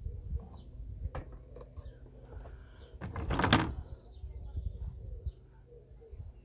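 Plastic parts of a bird-feeder kit being handled, with scattered light knocks and one louder rustle, under a second long, about three seconds in, over a low wind rumble on the microphone.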